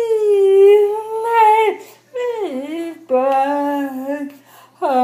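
A woman's voice singing a hymn melody as long held, wordless vowel notes, a few of them sliding down in pitch, with short breaks between notes.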